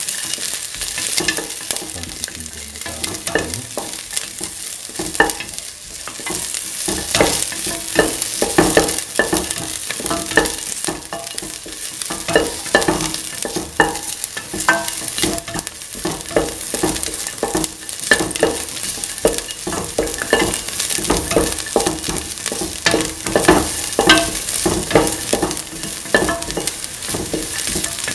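Onion, garlic and ginger sizzling in hot oil in a stainless steel pan, with a spatula stirring and scraping across the pan's bottom in many short strokes.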